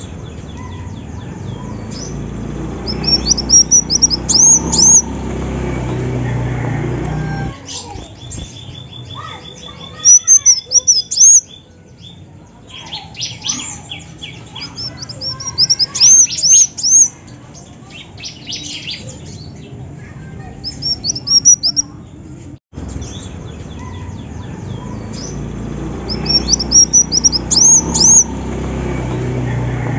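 Female kolibri wulung, a sunbird, singing: clusters of high, sharp, arching chirps repeated every few seconds, with a fast ticking run about a third of the way in. A steady low rumble runs underneath.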